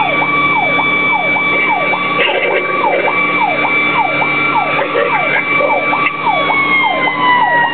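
Fire engine's siren heard from inside the cab on an emergency run: a fast yelp sweeping up and down a little over twice a second, over a steady higher siren tone that starts to slide down in pitch about six seconds in.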